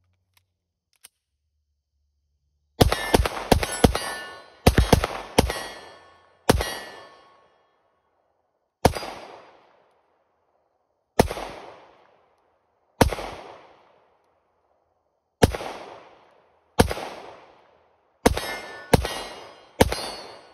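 Tisas PX-9 Gen 3 9mm pistol firing about sixteen shots. The first are a fast string starting about three seconds in, then they come as single shots a second or two apart, each followed by a ringing tail.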